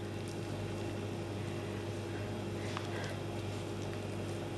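Hands mixing a soft flour-and-water dough in a ceramic bowl: a few faint squishes and light taps over a steady low hum.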